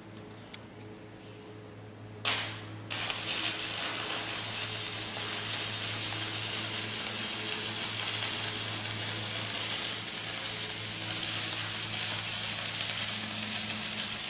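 Stick-welding arc powered by batteries, burning a 3/32 stainless steel rod: a short sharp strike about two seconds in, then a steady crackling sizzle that cuts off at the very end.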